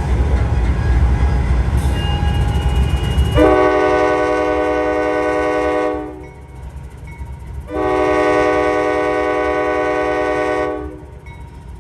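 A freight train's heavy rumble for the first few seconds. Then the air horn of the lead GE AC44 diesel locomotive sounds two long blasts of a steady multi-note chord, separated by a short pause.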